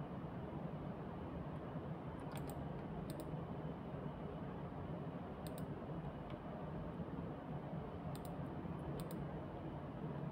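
Computer mouse clicking about five times, each click a quick press-and-release pair, a second or more apart, over a steady low hum of room and computer noise.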